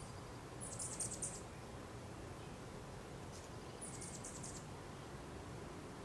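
Hummingbird giving two quick runs of high, thin chip notes, four or five chips each, about a second in and again about four seconds in.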